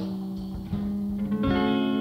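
Live band music: electric guitar and bass guitar letting plucked notes ring on. New notes are struck twice, the second time bringing in a fuller, brighter chord.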